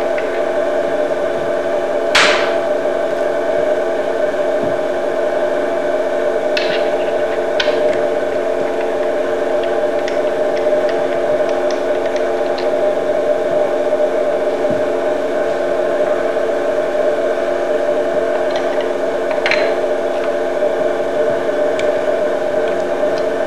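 Steady multi-tone machine hum from a chewing gum tester, broken by a few sharp clicks as metal parts of the test station are handled and fitted, the loudest about two seconds in.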